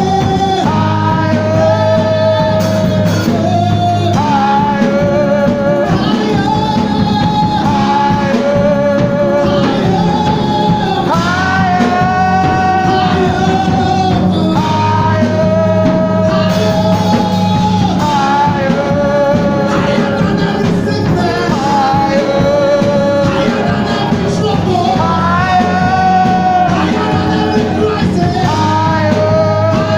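Music with a voice singing a melody over a steady beat and sustained bass.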